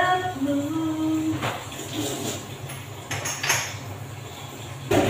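A woman's voice with a short held note at the start, then dishes and utensils clink and clatter several times, over a steady low hum.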